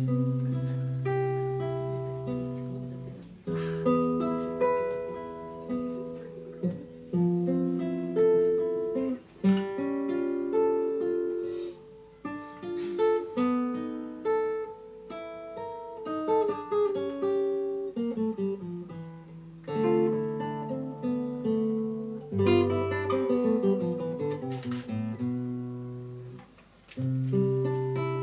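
Nylon-string classical guitar played solo, single notes picked one after another over held bass notes: the instrumental opening of a song.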